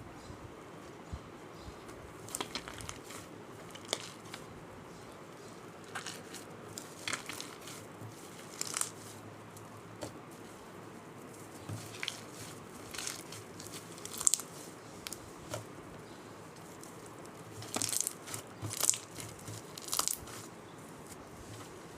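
Foam-filled slime being squeezed and worked by hand, giving irregular crackling, crunchy pops in short clusters, the loudest bunch near the end.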